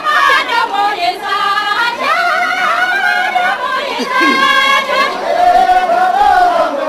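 A group of men and women singing a dance song together, voices only, with long held notes.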